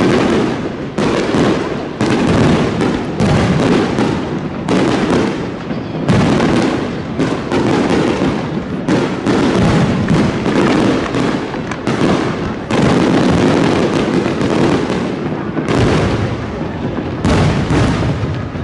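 Aerial fireworks bursting in a rapid, continuous barrage, a fresh burst every second or two with little gap between them.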